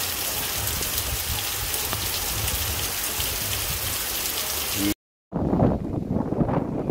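Heavy rain pouring down in a steady, dense hiss. It cuts off about five seconds in, and gusts of wind buffet the microphone.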